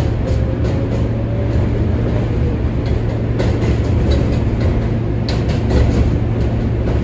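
R143 subway train running along the track: a steady heavy rumble with frequent irregular clicks and knocks from the wheels on the rails, and a faint whine that slowly rises and falls.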